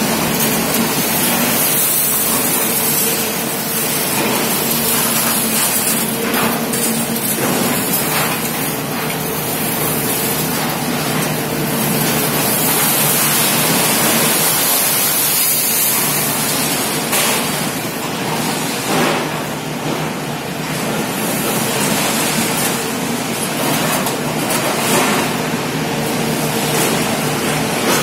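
XCMG excavator's engine and hydraulics running steadily under a loud hiss-like noise, with a few short clanks of scrap metal as the orange peel grab handles its load.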